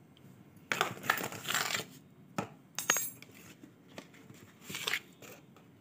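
A small steel spoon scraping and clinking against steel dishes while spices are spooned out: a scraping spell in the first seconds, then a couple of sharp clinks around the middle.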